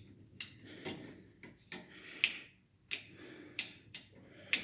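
A light switch being flicked again and again: sharp, separate clicks about once a second, while the lamp it controls fails to come on.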